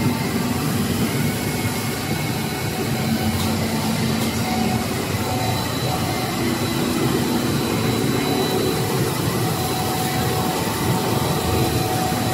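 A 1500 mm three-layer cast stretch film production line running: a steady, even machine drone with a faint high whine held over it.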